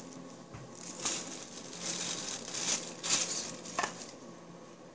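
Plastic bag crinkling and rustling as it is handled, in several uneven bursts, with a short tap about four seconds in.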